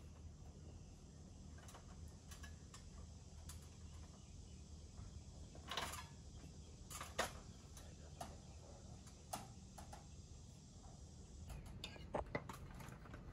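Faint, scattered knocks and clicks from sheet-metal panels being handled and fitted on a van roof, over a low steady hum, with a sharper knock a little past halfway.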